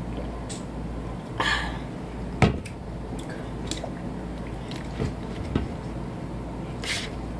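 A person eating: chewing and mouth sounds with a few short clicks and knocks, the loudest about two and a half seconds in.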